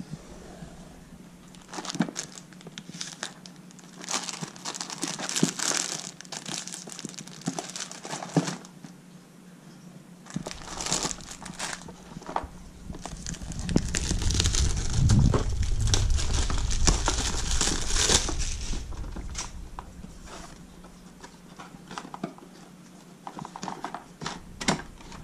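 Clear plastic shrink-wrap crinkling and tearing as it is slit with a knife and peeled off a cardboard box, in irregular rustling bursts. The rustling is loudest about halfway through, with heavy handling of the box, then thins to a few small crackles near the end.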